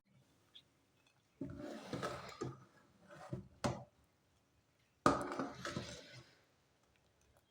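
Kitchen utensils clattering and scraping against a cooking pot in three short bursts, with a sharp clink partway through.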